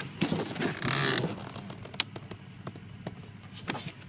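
Handling noise: a rustling scrape lasting about a second, then several light clicks and knocks, as things in the boat's seating area are moved.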